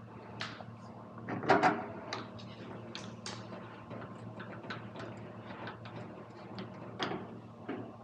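Scattered clicks and knocks of hands handling a microwave oven's metal casing and small parts, loudest a pair of knocks about a second and a half in, over a steady low hum.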